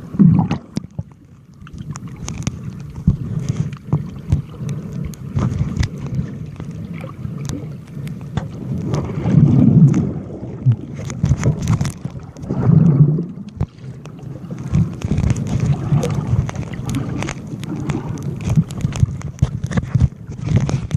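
Seawater sloshing and gurgling, heard muffled through a Galaxy S4 sealed in a DiCAPac waterproof pouch, with frequent small knocks and crinkles of the pouch. The water surges louder about halfway through and again a few seconds later.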